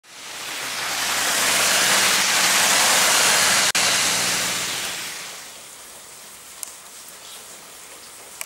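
Car driving on a wet road in the rain: a loud hiss of tyres through water over a low engine hum. About five seconds in it fades to softer steady rain with a few faint drop ticks.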